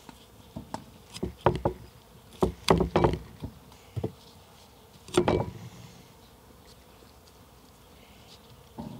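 Knife chopping broccoli on a cutting board: about ten irregular knocks through the first five seconds or so, the last one the loudest, then quiet. An insect buzzes faintly in the background.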